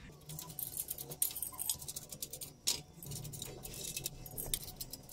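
Irregular metal clinks, taps and rattles of chrome-rimmed metal mounting trays being handled on a gumball-machine stand, with a couple of sharper clacks about a second and nearly three seconds in.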